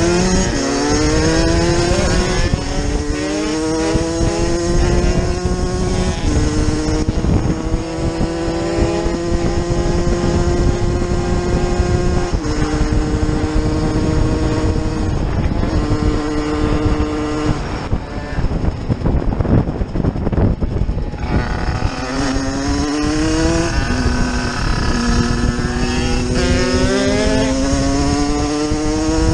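Motorcycle engine heard from on board, accelerating through the gears: its pitch climbs and drops back at each shift. It eases off and coasts for a few seconds past the middle, then pulls up through the gears again, over a steady rush of wind.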